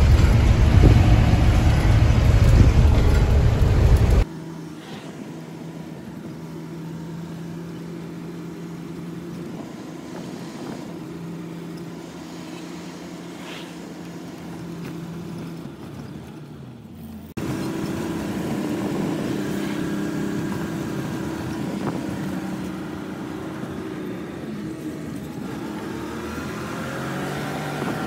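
Truck engine running and road noise heard from inside the cab while driving: a loud low rumble at first, then after a sudden cut a quieter, steady engine hum with a few held tones, which steps up a little again about two-thirds of the way through.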